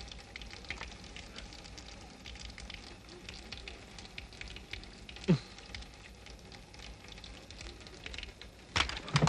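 A faint steady crackle with scattered clicks. About five seconds in, a short sound slides quickly down in pitch, and just before the end a louder burst of noise begins.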